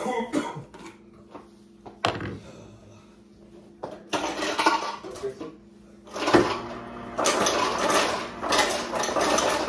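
Household handling noise off camera in a kitchen: a sharp knock about two seconds in and another about six seconds in, with stretches of clattering and rustling between and near the end. A faint steady hum runs underneath.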